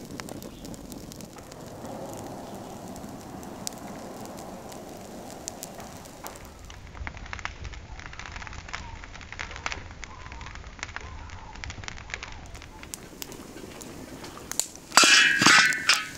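Crackling and popping from a wood cooking fire, a steady hiss scattered with sharp little cracks. Near the end comes a brief, much louder, higher-pitched burst of about a second.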